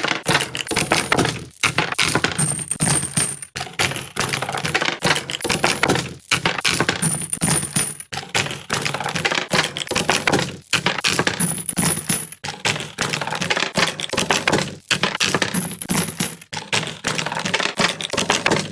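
Loose metal cartridges pouring and clinking against one another in a dense, continuous rattle, broken by brief pauses about every two seconds.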